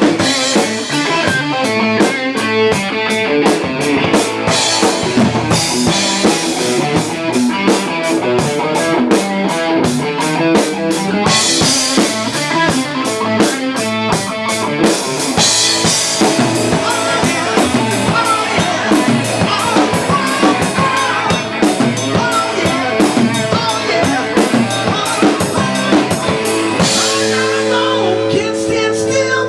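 Rock music: an electric guitar riff over a drum kit, played continuously.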